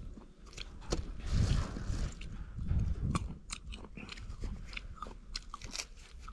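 Pocket knife cutting into a firm green guava: a run of short, crisp cracks and scrapes, with a few dull low thumps.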